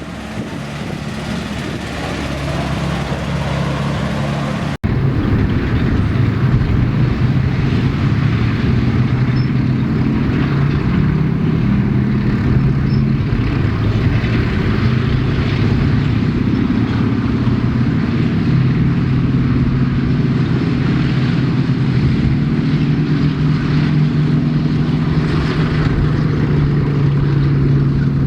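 Heavy military vehicle engine running steadily with a low, even hum. It breaks off for an instant about five seconds in, and after that it is louder.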